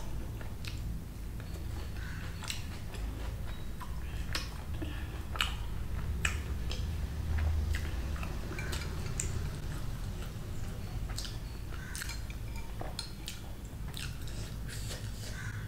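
Close-miked chewing of bhatura and chole, with irregular wet mouth clicks and smacks.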